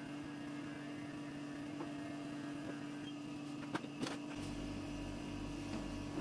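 Electric pet hair clipper running with a steady hum while a poodle's coat is trimmed. A couple of light knocks come near the four-second mark, and a lower pulsing buzz joins just after.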